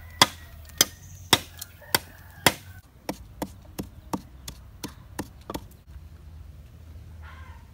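A machete chopping into green bamboo stalks, sharp strikes about every half second. Then lighter, quicker knocks of a wooden pestle pounding in a clay mortar, about three a second.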